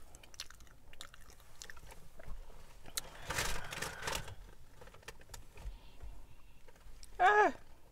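Eating and food-handling sounds: faint clicks and mouth noises, with a wet, rustling stretch around the middle as sour cream is squeezed from a plastic cup onto a burrito. Near the end, a woman makes a short, loud vocal sound that falls in pitch.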